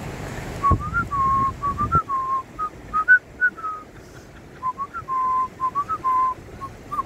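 A person whistling a tune: a string of short and held notes that rise and fall, starting just under a second in.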